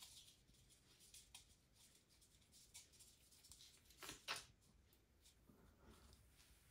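Faint handling noise of an oil syringe and its tube at a bicycle gearbox's oil port: light clicks and rustles, with a short louder rustle about four seconds in.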